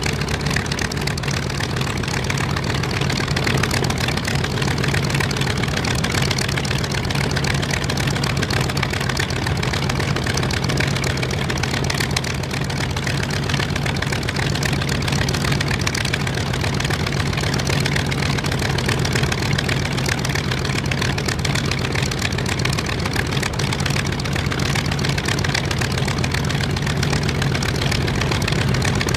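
Focke-Wulf Fw 190 A-8's radial piston engine idling steadily on the ground after start-up, with a low, even drone.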